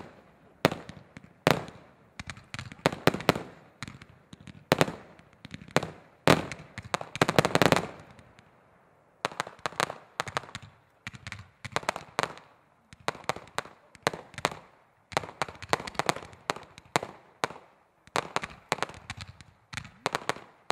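Aerial fireworks display: a steady string of sharp bangs at irregular spacing as shells and comets burst overhead. A dense rapid volley comes about seven seconds in, then a brief lull before the bangs resume.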